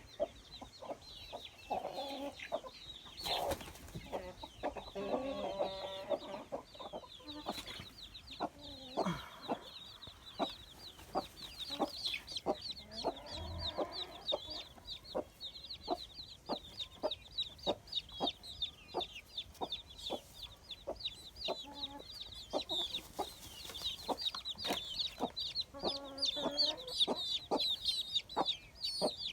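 Chickens clucking, with dense, rapid high-pitched peeping throughout and short sharp ticks about once or twice a second.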